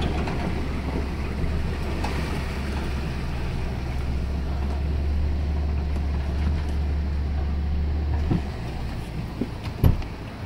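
Truck engine running steadily at low speed under a constant rushing noise as the truck creeps through shallow floodwater; about eight seconds in the engine note drops away, and a sharp knock comes near the end.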